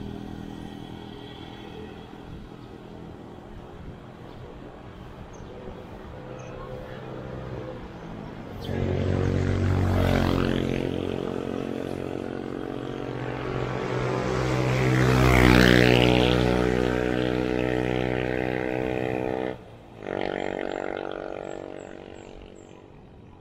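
Road traffic: a motor vehicle's engine grows louder about a third of the way in, is loudest about two thirds through as it passes close by, then drops out abruptly for a moment near the end before fading.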